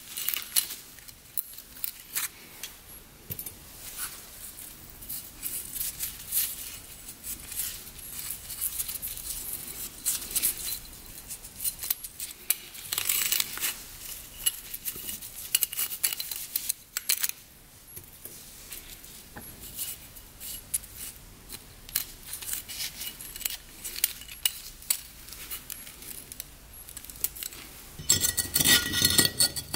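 Small metal clicks, clinks and scrapes as the oil control rings are worked off an engine piston by hand. Near the end it turns louder and busier, with a few steady tones.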